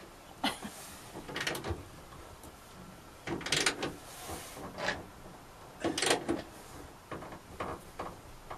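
Spanner work on bolts through a van's rear door: several short, irregular bursts of ratcheting and metal clicking as the nuts are tightened.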